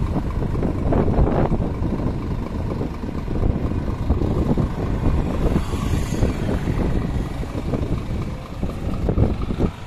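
Wind buffeting the microphone: a rough, uneven rumble.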